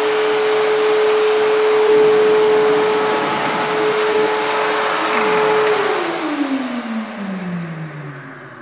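Bosch GAS 15 wet/dry vacuum running with a steady whine, then switched off about six seconds in, its motor winding down in a falling whine that fades by the end.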